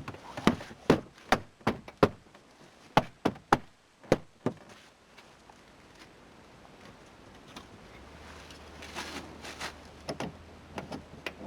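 Series of sharp knocks and snaps as a Chevrolet Suburban's plastic inside door panel is pressed back onto the door, its plastic clips snapping into their holes. There are about a dozen in the first four and a half seconds, followed by quieter handling sounds.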